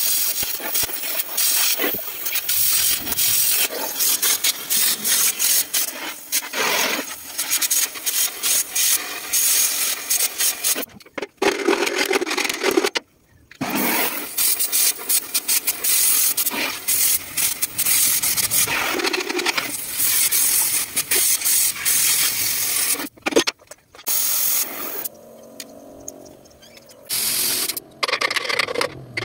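Oxy-fuel cutting torch cutting through a steel truck chassis rail: a steady hiss with crackling from the sparks and molten metal, dropping out abruptly a few times.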